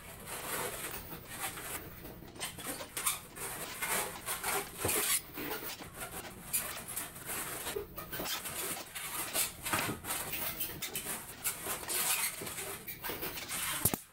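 Long latex modelling balloons squeaking and rubbing against each other as they are twisted and locked into a turtle shape, in an irregular run of short squeaks and creaks.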